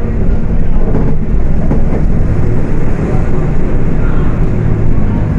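The diesel engine of a Volkswagen Volksbus 18.280 OTS city bus running as the bus drives. It is a loud, steady drone with a deep rumble, and its pitch settles a little about halfway through.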